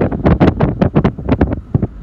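Train wheels clattering rapidly over the rails in a dense, irregular run of sharp clacks, with wind buffeting the microphone.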